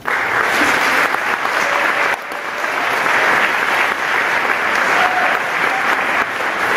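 Audience applauding, breaking out suddenly and carrying on steadily, with a brief dip about two seconds in.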